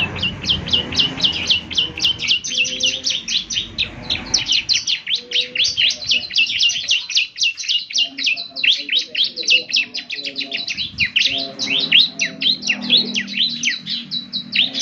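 Bar-winged prinia (ciblek) singing a long, fast, unbroken chatter of sharp high notes, several a second.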